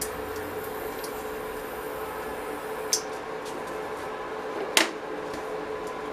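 Induction cooktop running with a steady hum, heating a steel pan of oil. Two sharp ticks come through, about three seconds in and again nearly five seconds in, the second louder.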